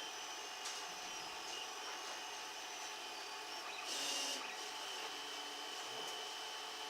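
Steady machine noise with thin, high, whining tones, faint clicks, and a short hissing rub about four seconds in.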